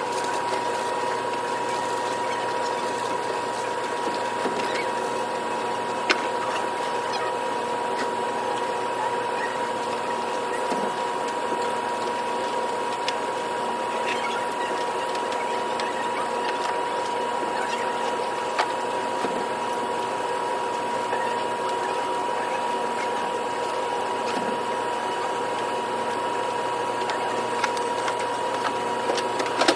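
A small machine running steadily, with a constant high-pitched tone and a few faint clicks.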